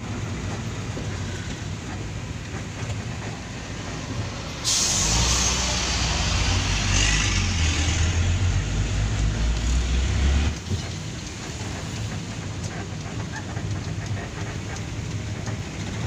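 Fuso dump truck running, heard from inside its cab as a steady rumble with road hiss. About four and a half seconds in, a louder, deeper rumble with a burst of hiss comes in and lasts about six seconds, then drops back: a heavy dump truck passing close the other way.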